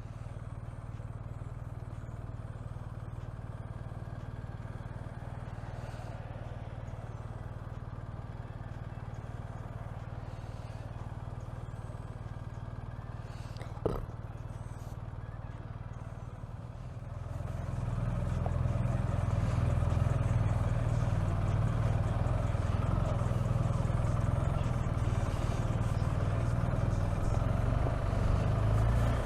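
Motorcycle engine and wind noise at a steady cruise, a constant low drone that grows louder about seventeen seconds in, with a single sharp click near the middle.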